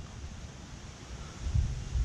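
Wind noise on the microphone, a low rumbling hiss that dips at the start and picks up again about one and a half seconds in.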